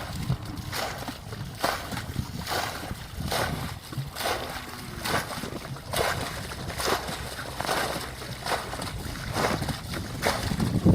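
Water sloshing and splashing in a steady rhythm of short strokes, a little more than one a second.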